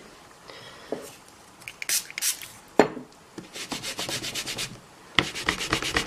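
Hands rubbing and scraping on a papercraft desk: a brief scrape about two seconds in, then two runs of quick rubbing strokes, about eight a second, in the second half.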